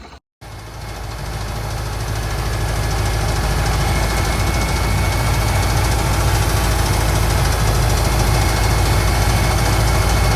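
Engine running steadily after a brief cut, growing louder over the first few seconds and then holding, until it stops abruptly.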